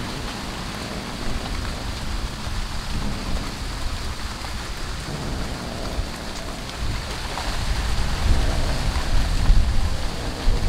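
Wind buffeting the microphone: a gusting low rumble over a steady hiss, growing stronger in the last few seconds.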